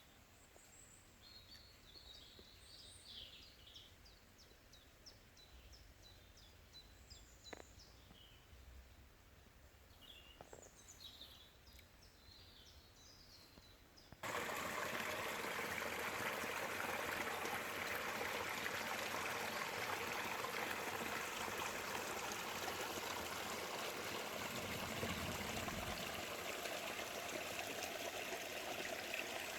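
Birds calling with short high chirps and trills over a faint background. About halfway through, this cuts abruptly to the steady, much louder rush of a flowing stream.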